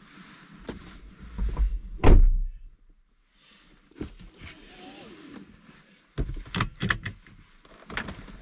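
A driver moving about in a car's front seat: rustling, a heavy thump about two seconds in, and a run of sharp clicks later on as the seat belt is pulled across and buckled.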